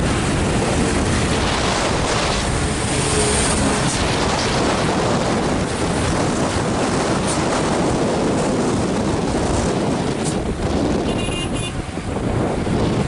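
Wind buffeting the microphone over the steady rumble of heavy road traffic, with a brief high-pitched tone near the end.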